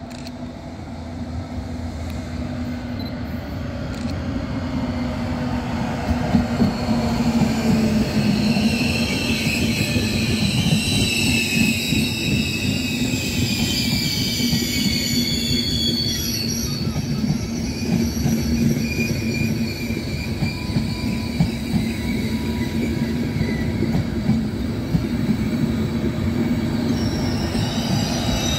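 Intercity Notte passenger train hauled by E402B electric locomotives rolling past close by, a loud continuous rumble of wheels on rail under a steady low hum. It grows louder over the first few seconds as the train comes alongside. A high squeal comes from the train from about eight seconds in until about seventeen seconds in.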